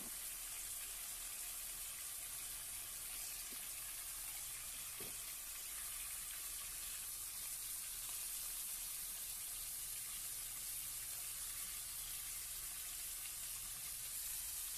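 Lamb chops and vegetables sizzling steadily in a ceramic pan over high flame, their leftover cooking liquid drying off.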